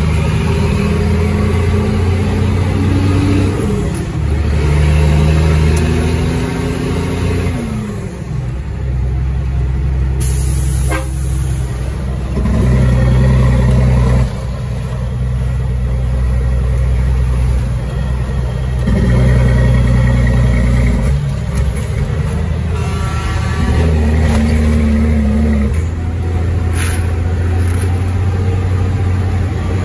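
Caterpillar 3306 diesel engine of a Ford Sterling truck running under load. Its pitch climbs and then drops sharply several times, as it does when a driver shifts up through the gears.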